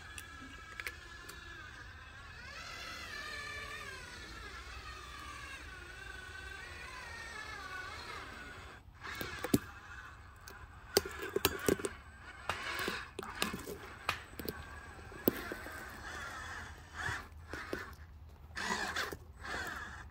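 Electric motors of radio-controlled construction models whining, the pitch rising and falling as they work. From about nine seconds in, irregular clattering and sharp knocks.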